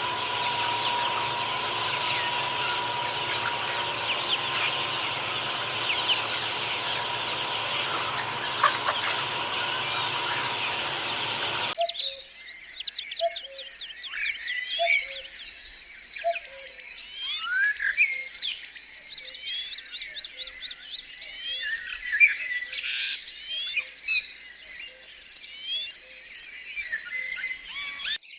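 Birds chirping and calling. For the first twelve seconds many faint chirps sit over a steady hum and hiss; then the sound changes abruptly to clear, separate chirps and sweeping whistles, with a rapid high note repeated over and over.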